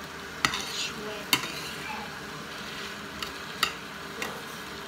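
Metal spoon stirring green beans and shrimp in a stainless steel frying pan, clinking sharply against the pan three times, about half a second, a second and a half and three and a half seconds in, over a low sizzle of the sauté.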